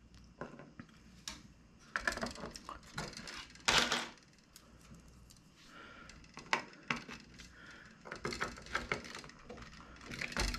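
Hard plastic parts being handled and pushed into a moulded plastic diorama base: scattered light clicks and taps, with one brief louder scrape about four seconds in.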